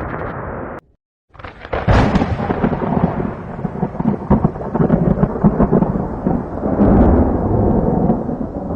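Rainstorm with rumbling thunder. The sound drops out for half a second just under a second in, then returns loud and keeps rumbling.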